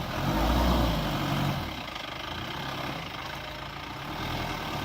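Motor vehicle engine running steadily, with a louder low rumble for about a second near the start.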